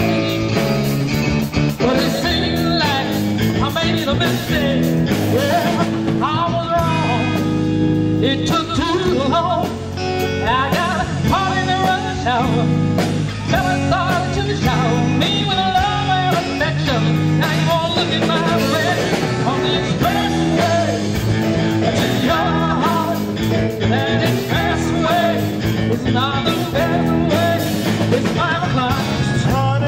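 Live blues-rock band playing, with a woman singing over electric guitar, keyboard and drums.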